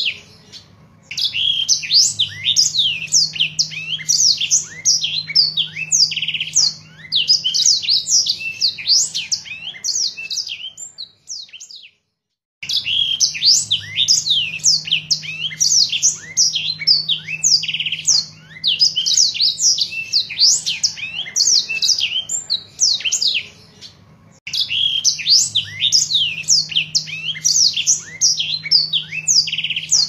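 Black-throated canary singing a fast, continuous twittering song of quick high notes and trills. The song stops dead for under a second about twelve seconds in, pauses briefly again about two-thirds of the way through, and each time resumes with the same stretch of song.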